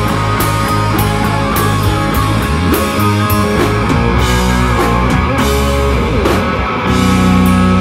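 Live hard rock band playing through amplifiers: distorted electric guitars, bass and drums keeping a beat of about two strokes a second, with the lead singer singing. About seven seconds in, the band swells louder into a held chord.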